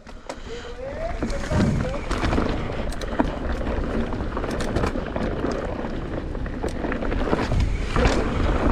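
Mountain bike riding fast down a dirt trail: tyres rolling over dirt and rocks with scattered rattles and knocks from the bike, and wind buffeting the microphone, building up about a second in.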